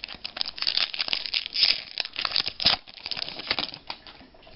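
Basketball trading cards being flicked and slid against one another in the hand: a rapid run of crisp rustles and flicks that dies away near the end.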